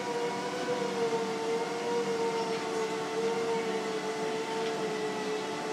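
A steady droning hum whose main tone sinks slightly in pitch over a few seconds.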